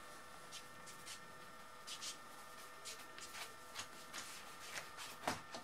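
Wiping an inked copper engraving plate by hand: faint, irregular soft rubbing strokes on the plate, with a louder stroke near the end, over a faint steady hum.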